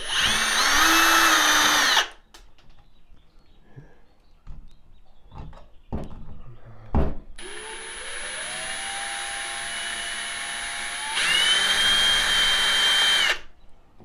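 Cordless drill-driver backing out the screws of a wall switch. It first runs at full speed for about two seconds. After a few light clicks it runs again, starting slow with the pitch of its motor whine climbing, then jumps to full speed about eleven seconds in before stopping.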